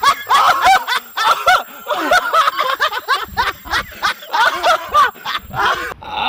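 People laughing hard and uncontrollably in quick repeated bursts of high-pitched laughter.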